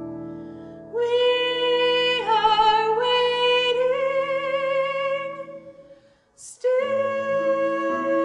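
A woman sings a musical-theatre song with piano accompaniment, holding long notes with vibrato. The phrase fades out about six seconds in, and after a brief pause the next phrase begins.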